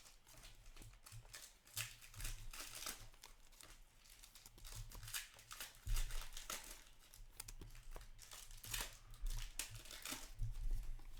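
Foil wrappers of trading-card packs crinkling and tearing as they are handled, in a series of short, irregular crackles and rustles.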